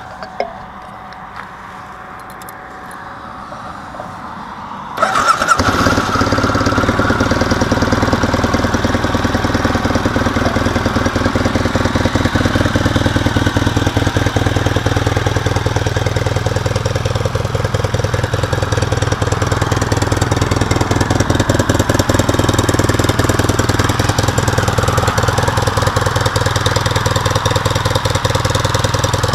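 Yamaha XTZ 750 Super Tenere's parallel-twin engine on its stock exhaust starting about five seconds in, after a few quieter seconds with a couple of clicks, then settling to a steady idle.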